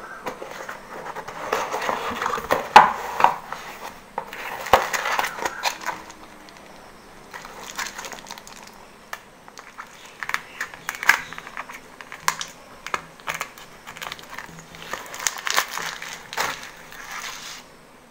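Plastic bubble-wrap packaging crinkling and rustling as it is handled and cut open with side cutters, with scattered sharp clicks and snips. The rustling comes in bursts, busiest in the first few seconds and again in the second half.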